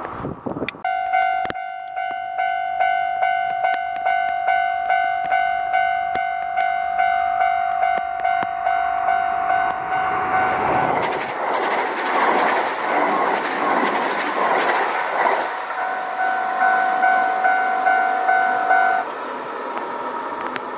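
Level-crossing warning bell ringing, an electronic clang repeated about one and a half times a second. About ten seconds in, a Kintetsu train passes over the crossing, and its rush of wheel and running noise drowns the bell for about five seconds. The bell stops near the end.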